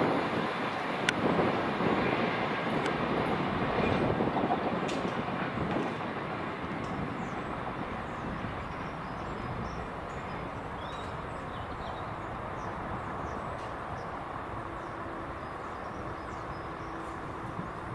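Class 66 diesel locomotives and tank wagons of a railhead treatment train running away along the track, the engine and wheel rumble fading over the first six seconds to a faint, steady distant drone.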